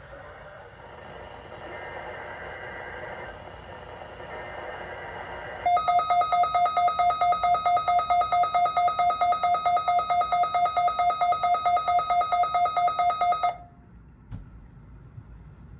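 A weather alert radio's alarm beeping rapidly in a two-tone pulse, about five beeps a second, starting about six seconds in and cutting off abruptly about eight seconds later. It is set off by the weekly test alert. Before it there is a faint steady radio hiss.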